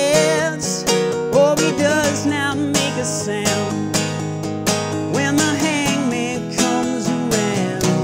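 Acoustic guitar strummed in a steady rhythm, with a man's wordless sung melody of wavering held notes over it.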